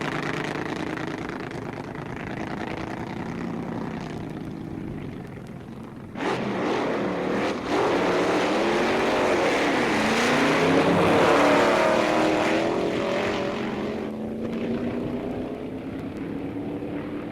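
Drag racing car engines at a drag strip: engines running at moderate level, then about six seconds in a sudden loud blast of engine noise, broken off for a moment, then loud with pitches sweeping up and down before easing off near the end into a quieter engine slowly rising in pitch.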